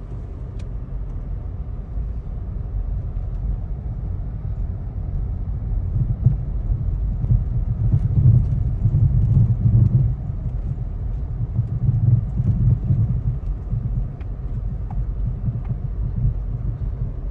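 Low, steady rumble of a car driving, heard from inside, growing louder for several seconds in the middle.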